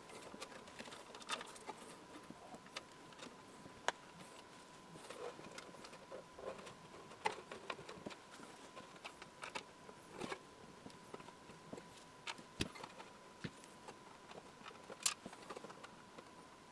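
Scattered light taps, clicks and rubbing of hands handling a small radio cabinet and a card placard on a rubber-matted workbench, a few taps sharper than the rest. A faint steady tone runs underneath.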